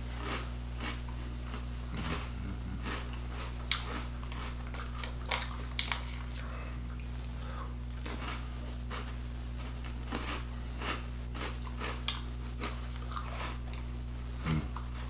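Person eating a bowl of cereal: irregular crunching and chewing, with sharp clicks of the spoon against the bowl, over a steady low electrical hum.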